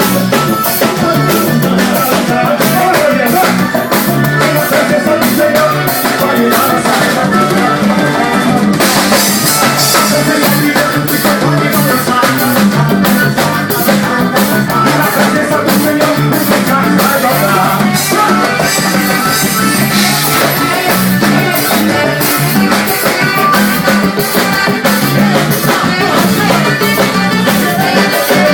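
Forró band music with a drum kit and guitar, played loud and continuously.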